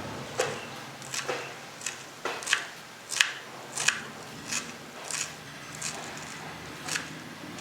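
A series of about a dozen light, sharp clicks and scrapes at an uneven pace, roughly one every half second to second, like kitchen utensils knocking and scraping during food preparation.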